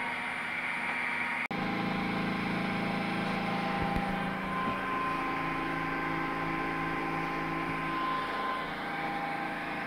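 Electric motor test bench, a PMSM drive motor coupled to a brake, running with a steady electrical hum made of several held tones. It drops out for an instant about one and a half seconds in, and a higher whine comes in around the middle and fades near the end.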